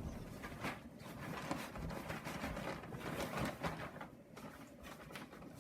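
A Henry vacuum cleaner dust bag being torn open at its glued seams and handled, a run of irregular crackly rips and rustles that thin out after about four seconds.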